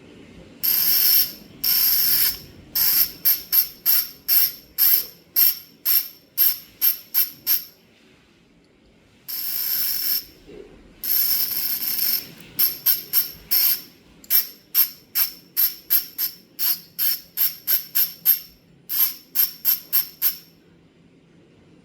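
Budget bicycle freehub ratcheting as the wheel freewheels: the pawls give a loud, high-pitched buzz. It comes in a few runs about a second long and many short quick bursts, about two to three a second, with a short pause about eight seconds in.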